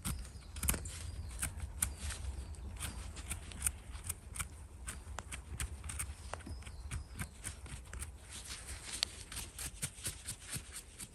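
Footsteps through forest-floor leaf litter: irregular snaps and crackles of dry leaves and twigs underfoot.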